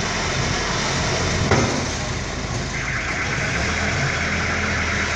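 Diesel engine of a backhoe loader running steadily as it drives with a loaded front bucket, with a single clunk about a second and a half in. A higher-pitched noise joins the engine about three seconds in.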